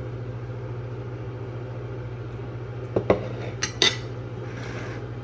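Cutlery and dishes clinking a few times about three seconds in, over a steady low appliance hum.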